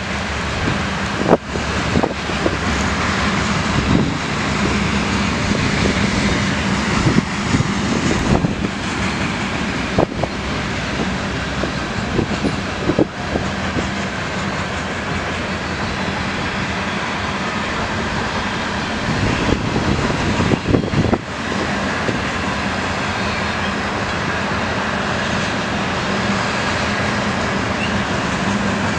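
Loaded covered hopper cars of a CN potash freight train rolling past: a steady rumble of steel wheels on the rails with a low hum, broken now and then by single sharp clicks and bangs.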